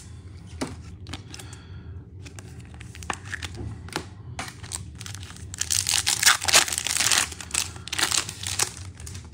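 Foil wrapper of a 2022 Bowman Baseball card pack crinkling and tearing as it is opened, a dense crinkling through the second half. A few light clicks of cards being handled come before it.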